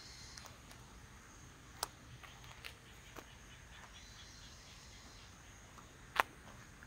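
Faint outdoor ambience: insects chirping in a high, pulsing band over a low steady hiss. A few sharp clicks break in, the loudest about six seconds in.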